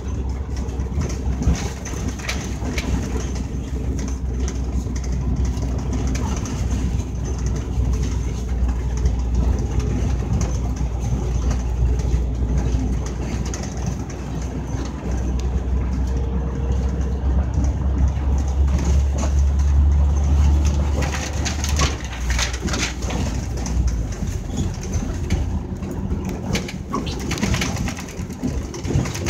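Scania K310UD double-decker bus's five-cylinder diesel engine running under way, a steady low drone heard from inside the bus. The drone builds to its strongest about two-thirds of the way in, then drops in two steps as the engine eases off, with a few rattles near the end.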